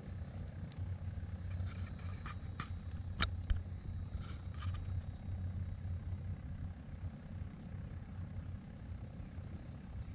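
Steady low wind rumble on the microphone, with a few light clicks in the first half.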